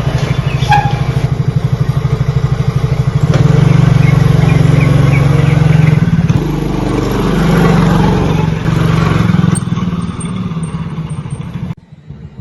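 Motorcycle engine running as it rides, with a fast, even pulsing that grows louder about three seconds in and shifts in pitch later on. It cuts off suddenly near the end.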